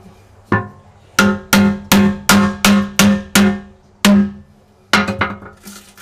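About ten hammer blows on a steel chisel against the bottom of a glass aquarium, about three a second with a short pause partway, each strike ringing. The chisel is chipping old silicone and a glued-on glass patch off the tank floor.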